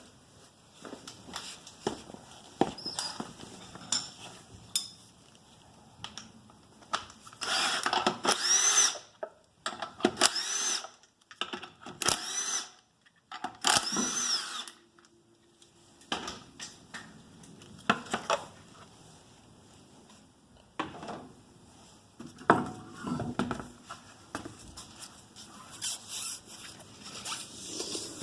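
A handheld power tool with a socket spinning lug nuts off a raised front wheel: four short whirs, each rising and then falling in pitch, between about 7 and 15 seconds in. Scattered clicks and knocks of metal parts being handled come before and after.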